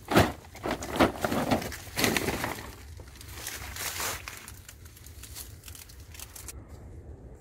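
Crinkling and rustling of a plastic-lined woven sack being handled, with a few sharp crackles in the first two seconds, then fainter rustling as reeds and a cast net are handled.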